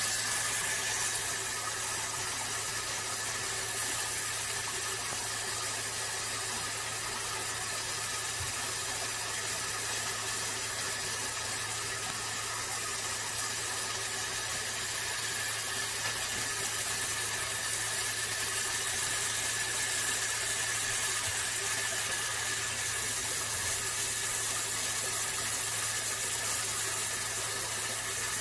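Steady hiss with a constant low hum and a faint high whine, unchanging throughout, with no clear splashing.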